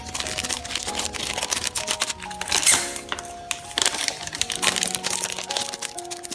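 Clear plastic crinkling and crackling as a paperback manga volume is handled and slid into a plastic book sleeve, loudest a little under three seconds in. Background music with held melodic notes plays throughout.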